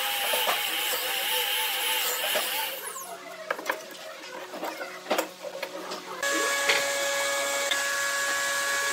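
Electric drill running into the end grain of a clamped wooden piece, its whine wavering in pitch, then stopping about three seconds in. Several sharp clicks and knocks follow as the metal C-clamp is handled, and after a sudden change near the end a steady hum of several tones.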